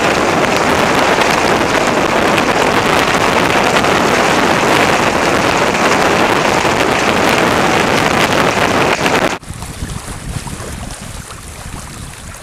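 Loud wind on the microphone and water rushing and splashing along the hull of a Hobie Island sailing trimaran under way at speed. About nine seconds in it cuts off suddenly to a much quieter wash of water and lighter wind.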